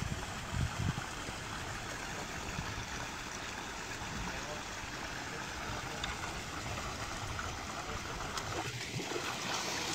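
Steady rush of running water where an inflow splashes into a shallow fish pond, with a few low thumps in the first second.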